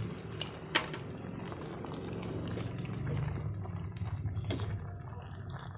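Chicken afritada stew bubbling at a simmer in a pot, with a spoon stirring it and a few sharp clinks of the utensil against the pot.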